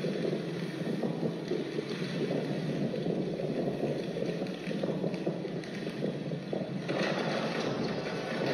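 A steady, dense rushing noise, low and full, that turns brighter and hissier about seven seconds in.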